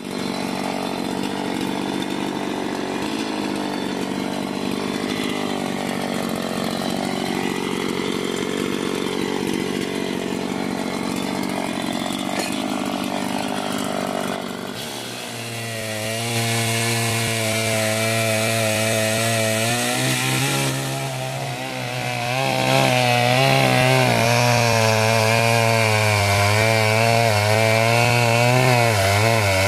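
Chainsaw running and cutting into a wooden log, its pitch wavering as it bites into the wood. It gets noticeably louder about halfway through.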